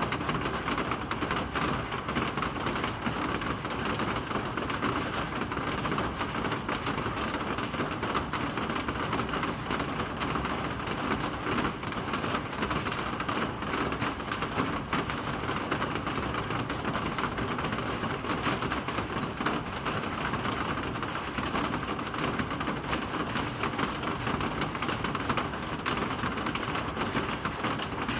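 Steady rain falling: an even, unbroken hiss, thick with the ticks of individual drops striking surfaces.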